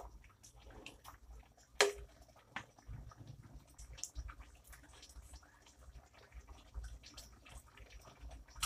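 Lechon paksiw sauce simmering in a metal pan, bubbling with small irregular pops, and one sharp knock about two seconds in.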